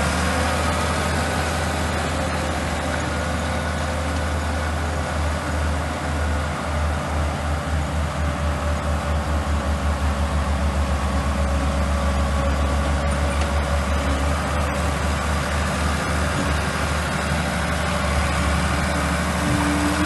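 Old Komatsu crawler bulldozer's diesel engine running steadily while it pushes and spreads dirt and gravel. Its low engine note throbs in a steady pulse through the middle seconds.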